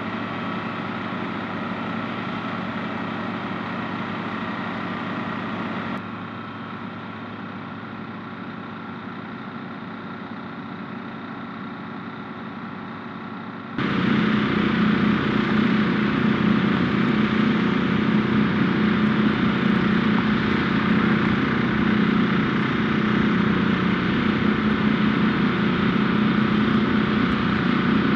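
Heavy engines running steadily with a constant hum. The sound drops slightly about six seconds in, then becomes much louder with a deeper, stronger hum about fourteen seconds in.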